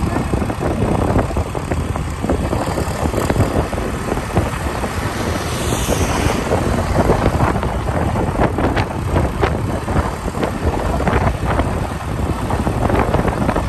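Motor vehicle running along the road, its engine and tyre noise mixed with gusty wind buffeting on the microphone.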